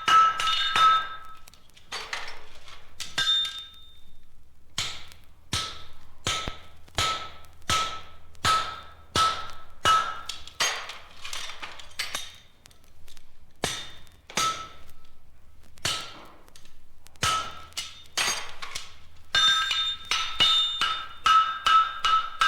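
Metal struck over and over, each blow ringing briefly at the same few pitches, about one or two blows a second. There is a short gap about four seconds in, and the blows come quicker and ring more strongly near the end.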